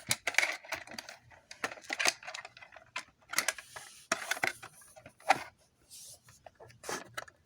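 Irregular clicks, snaps and light rattles of an emergency light fixture's plastic housing being handled and taken apart, its cover piece being pulled off.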